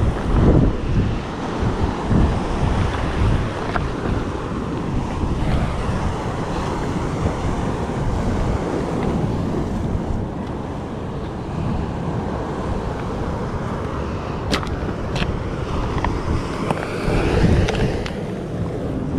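Surf washing and breaking on a rocky shore, mixed with gusting wind rumbling on the microphone. A couple of sharp clicks sound about two-thirds of the way through.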